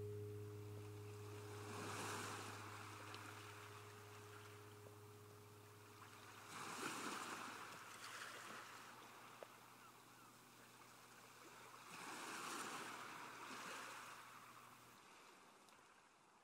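Faint rushing noise that swells and fades three times, over a low held note that cuts off near the end: the outro of the music fading out.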